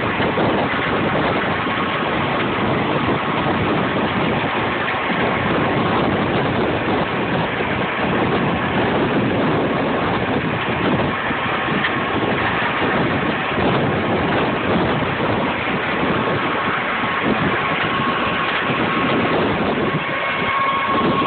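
Brussels sprout harvesting machine running steadily: a loud, continuous mechanical din with a faint steady whine in it.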